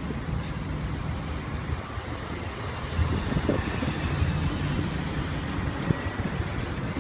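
Road traffic noise from cars on a busy street, with wind rumbling on the phone's microphone.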